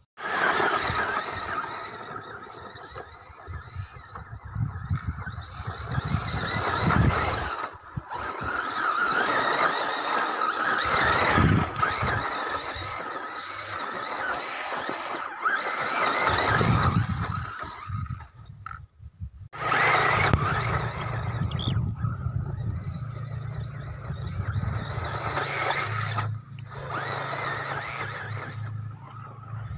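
ZD Racing B10E 1/10 RC buggy's brushless motor and drivetrain whining as it is driven on grass, the whine rising and falling with the throttle and breaking off briefly twice.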